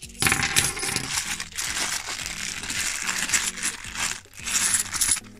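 A handful of bimetallic £2 coins clinking and jingling together in a plastic coin bag as it is handled, a dense run of metallic chinks with some plastic crinkle.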